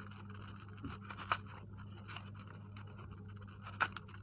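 Soft scratching and rustling as soap flowers are worked into a wicker basket packed with tissue, with two sharp clicks, one just over a second in and one near the end. A steady low hum runs underneath.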